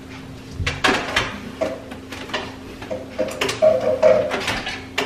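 Kitchen clatter at a pod coffee maker: a string of knocks and clinks as a mug and the machine are handled and a wooden cabinet door is shut, over a faint steady hum.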